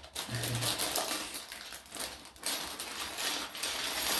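Clear plastic packaging crinkling and rustling as it is pulled open and handled, in a dense run of small irregular crackles.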